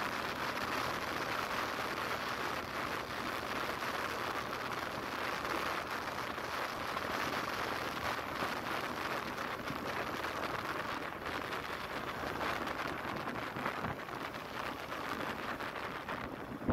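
Steady road noise from a moving vehicle: tyres hissing on asphalt with wind on the microphone, an even hiss that holds at one level throughout.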